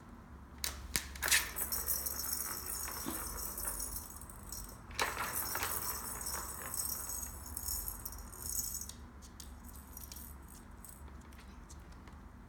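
Plastic ball rattling around the track of a circular plastic cat track toy as a dog knocks it with its nose and paws. A few sharp knocks about a second in start the rattling, which comes in two spells. The second starts with a knock about five seconds in and dies away about nine seconds in, leaving faint ticks.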